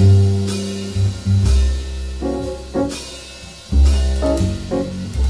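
Jazz piano trio playing a slow ballad without vocals: piano chords over deep bass notes, with soft drums and cymbals.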